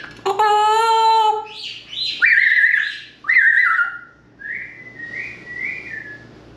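African grey parrot vocalizing: a held call about a second long, then a run of whistles, ending with three softer rising-and-falling whistles.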